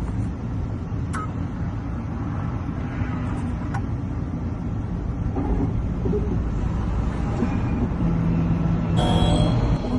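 Key-cutting machine running as it cuts a Hyundai HY17 key blank to code, a steady low motor noise. It grows a little louder toward the end, with a brief higher-pitched sound near the end.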